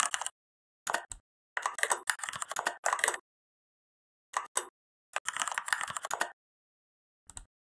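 Computer keyboard typing in several short bursts of rapid keystrokes with pauses between them, ending with a brief couple of keystrokes near the end.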